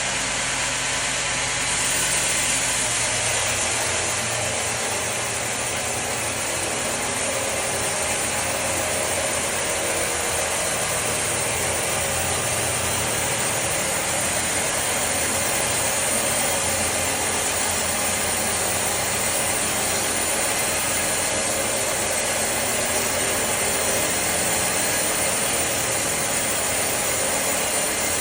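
Sawmill machinery running steadily: a constant mechanical din with a high hiss and no pauses.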